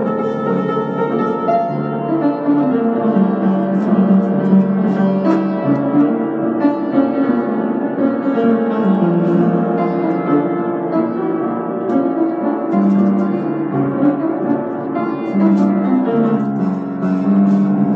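Piano music playing, with sustained notes and chords that shift steadily.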